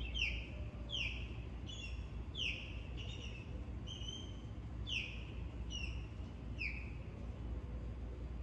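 A wild bird singing a run of short, sharp whistled notes that slide down in pitch, about one or two a second, with a few short level notes in between.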